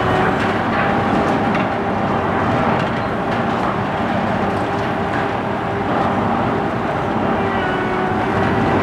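Komatsu PC1250-8 excavator's six-cylinder diesel engine running steadily under load, with a steady hydraulic whine as the high-reach demolition boom works the attachment. A few faint cracks and knocks of breaking concrete come through now and then.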